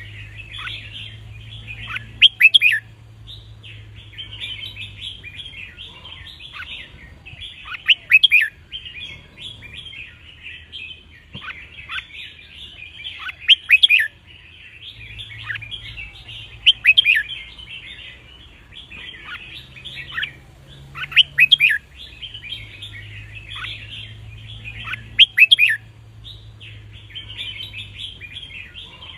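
Red-whiskered bulbuls singing: a steady jumble of chirping notes, with a loud clear song phrase breaking out every few seconds.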